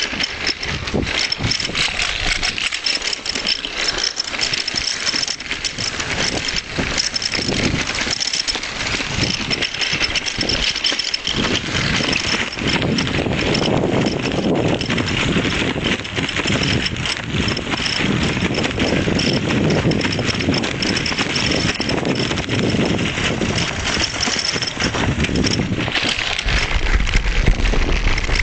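A bicycle and its camera mount rattling and clattering continuously as it rides over the street surface, with road and traffic noise underneath.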